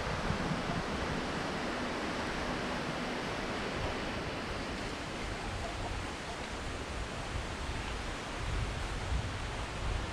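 Wind rushing steadily through trees and palm fronds, with low wind buffeting on the microphone that grows stronger near the end.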